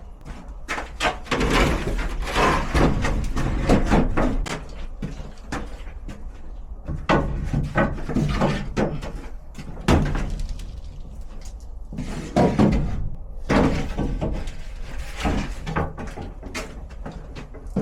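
Repeated bangs, knocks and clatter of junk and household items being handled, moved and set down while a storage shed is emptied.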